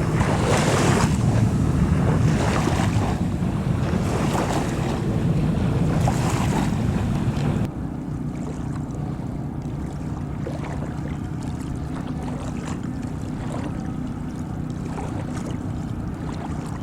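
Wind buffeting the microphone over lapping water, in gusts every second or so, dropping off suddenly about halfway through to a quieter steady rush with a faint low hum underneath.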